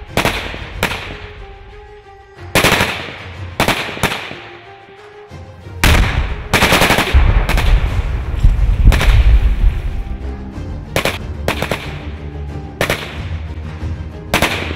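Bursts of rifle and machine-gun fire on a battle-training course, with a blast and a heavy low rumble lasting a few seconds from about six seconds in. Background music plays underneath.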